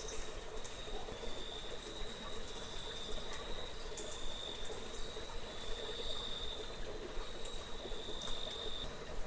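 Cricket-like insect trill: one steady, high-pitched note held in long stretches with brief gaps, over faint scattered ticks and a soft background hiss.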